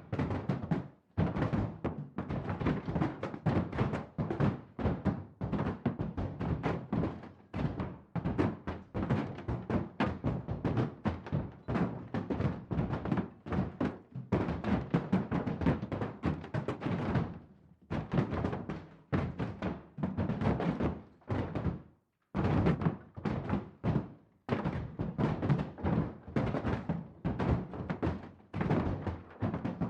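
Fists pounding on a wall: a rapid, uneven run of dull thuds, several a second, broken by a few short pauses.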